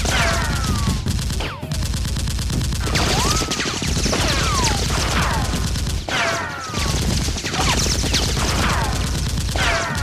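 Sound-effect automatic gunfire: rapid, continuous bursts with a couple of brief breaks. Many falling, whistling ricochet-like whines sound over the shots.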